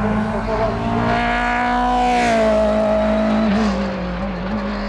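Racing car's engine at high revs, climbing in pitch and getting louder for about a second and a half. It is loudest around the middle, then holds and drops slightly in pitch as the car goes by.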